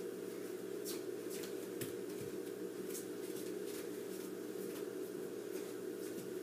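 Quiet room tone with a steady electrical hum, overlaid by faint, irregular rustles and light taps of someone moving about.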